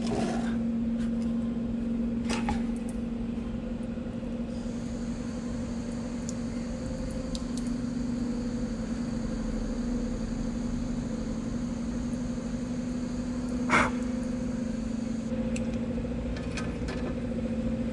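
Toyota Camry Hybrid's ABS brake booster pump motor running with a steady hum, pushing fluid and air out of an open rear brake bleeder during a brake bleed. A fainter high whine comes in for several seconds in the middle, and there are a few sharp clicks.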